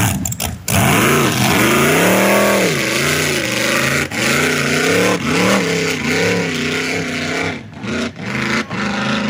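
Open-engine flatbottom race boat's engine running hard across the water, its pitch climbing and falling several times as the throttle is worked.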